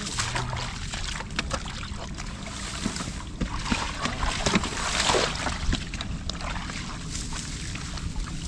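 Sloshing and splashing in shallow muddy water, with irregular knocks and rustles, as a large fish is handled and a plastic basket is moved about at the water's edge.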